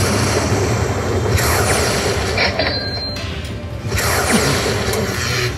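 Lightning Link Moon Race slot machine's win-celebration sound effects: a loud electric crackling over a low rumble, surging again about every two and a half seconds as the bonus win total counts up.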